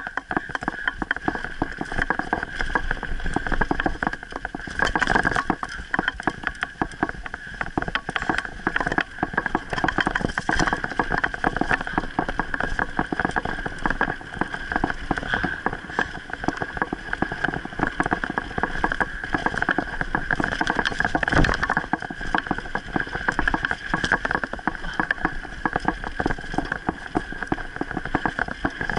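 Mountain bike rolling fast over a dirt trail, its tyres crunching on the dirt and the bike rattling and clattering over bumps under a steady high buzz. There is one harder knock about three-quarters of the way through.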